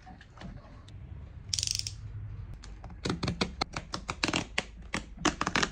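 A short hiss of aerosol glue stripper sprayed onto a leather boot sole to loosen the old glue. Then a quick run of sharp, irregular clicks and snaps as a snap-off utility knife cuts around the edge of the sole.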